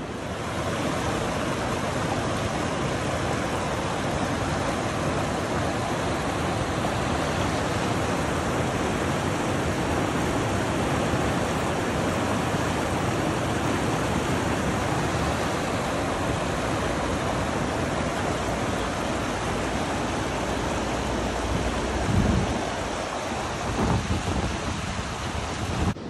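Snowmelt waterfall plunging down a sandstone cliff: a steady, full rush of falling water and spray. Two brief low thumps come near the end.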